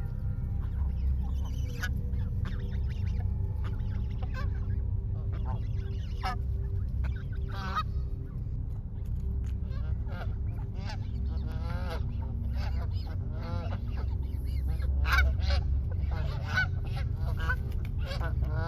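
A flock of Canada geese honking: many short calls, coming thicker in the second half, with a steady low rumble underneath.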